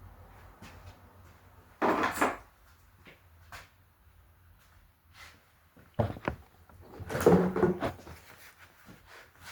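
Handling noises: a short clattering burst about two seconds in, two sharp clicks at about six seconds, then a longer clatter, like tools or parts being picked up and set down.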